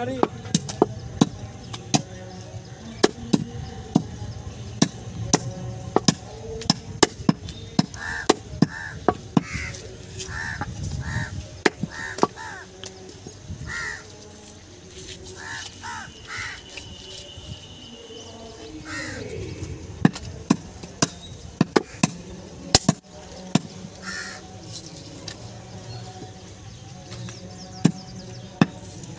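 Heavy cleaver chopping goat meat and bone on a wooden log chopping block: irregular sharp knocks, several a second at times. Through the middle stretch a bird calls in a series of short repeated calls.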